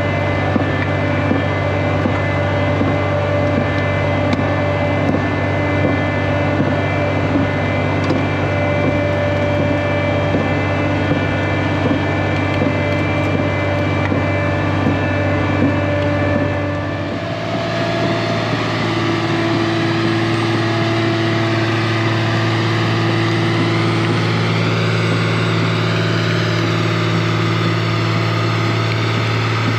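A large engine running steadily under load, its low drone holding even; about seventeen seconds in, its pitch and tone change abruptly and it carries on steadily at the new pitch.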